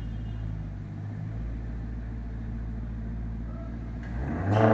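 Maserati GranTurismo V8 with an aftermarket Tubi exhaust idling steadily while stationary. Near the end it revs up in a short rising blip, growing much louder.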